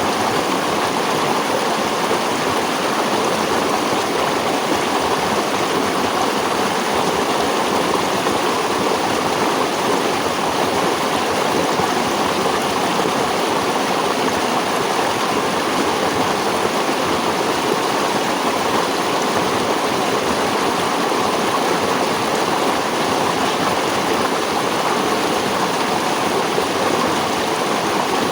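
Running stream water: a steady, even rush of flowing water with no breaks or changes.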